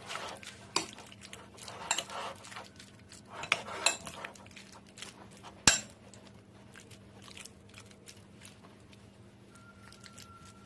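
Metal spoon stirring sliced raw beef in a ceramic bowl, clinking and scraping against the bowl. There is one sharp clink a little past halfway, and only faint light ticks in the last few seconds.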